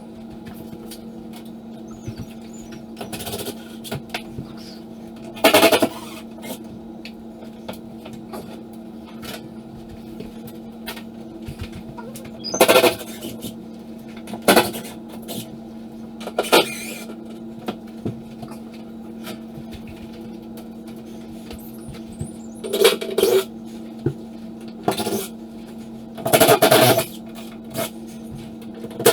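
A cordless drill-driver running in about six short bursts, driving screws overhead to fasten mirror mounting hardware to the wall, over a steady low hum.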